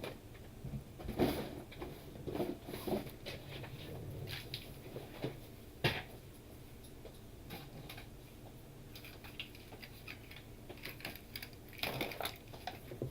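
Scattered light clicks and taps from handling a Samsung tablet and repair tools on a work surface, with one sharper knock about six seconds in and a quieter stretch in the middle.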